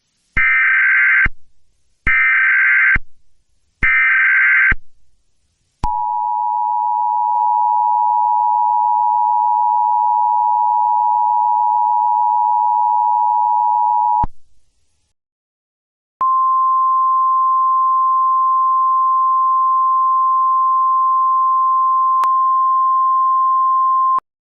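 Emergency Alert System test tones: three short bursts of SAME digital header data, each under a second long, then the two-tone EAS attention signal held steady for about eight seconds. After a two-second gap, a single steady 1050 Hz weather-radio alert tone sounds for about eight seconds.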